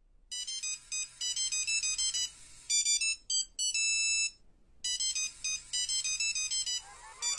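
A high-pitched electronic ringtone-style melody of quick, short beeping notes. About four seconds in it holds one longer note, breaks off briefly, then the quick notes resume.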